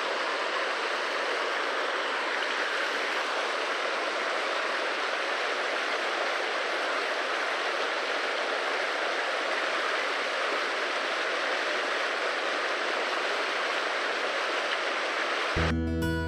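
Mountain creek water rushing steadily over rocks. Acoustic guitar music comes in near the end.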